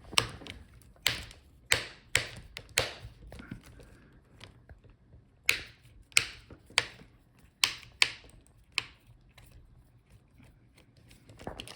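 Sharp clicks and taps of small tools and plastic or metal parts being handled while a laptop is taken apart: about a dozen irregular clicks in two bursts, with a quieter stretch in the middle.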